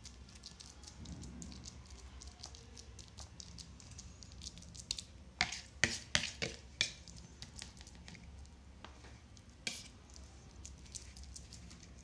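Steel spoon scraping and pressing crumbly kalakand mixture across a greased stainless steel plate, with a quick run of sharp clicks of the spoon against the plate about halfway through and one more click near the end.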